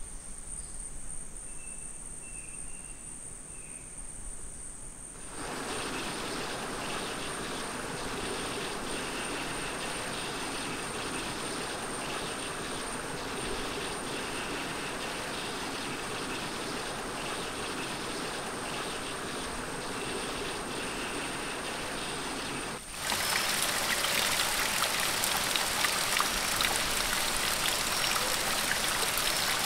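Small forest waterfall: water spilling over a rock ledge and splashing, loud and steady from about 23 seconds in. Before that comes a quieter, even rushing noise, and a high insect trill holds one steady pitch throughout.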